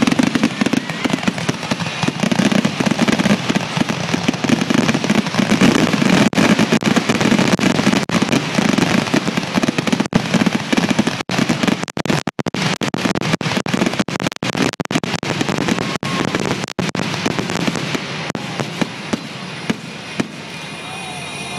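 Fireworks crackling in a dense, continuous barrage of rapid pops, thinning out and getting quieter over the last few seconds.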